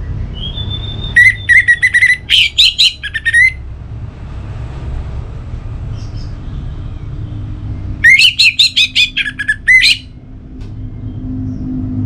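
Orange-headed thrush singing: two loud bursts of rapid, varied whistled notes, each about two seconds long, several seconds apart, over a low steady background rumble.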